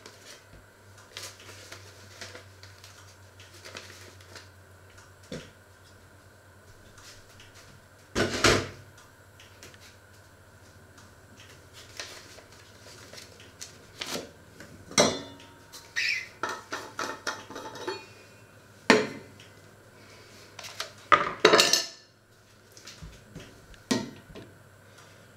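Kitchen clatter of pots, dishes and cutlery being handled: scattered knocks and clinks, several louder clanks, and a quick run of small clinks in the middle, over a faint steady hum.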